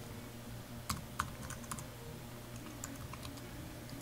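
Typing on a computer keyboard: a quick run of key clicks about a second in, then a few scattered keystrokes.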